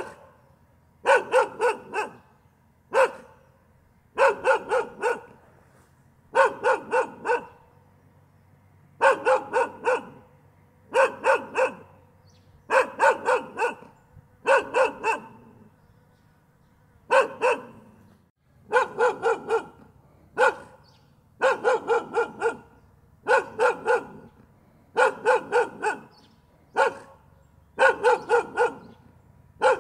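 A dog barking over and over in quick runs of two to four barks, with a short pause between runs about every two seconds.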